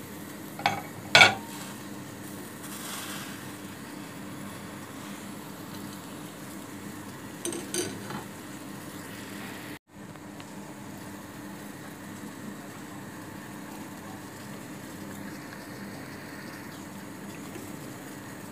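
Ingredients and utensils knocking against a stainless-steel pressure cooker pot: two sharp knocks about a second in and a few lighter ones around eight seconds in. Underneath runs a steady kitchen hiss and low hum, and the sound cuts out for an instant near the middle.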